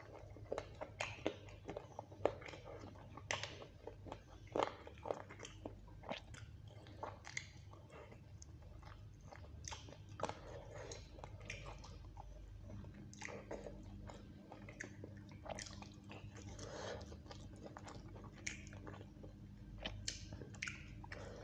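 Close-miked chewing and mouth sounds of a person eating chicken curry and rice by hand: a string of irregular short smacks and clicks.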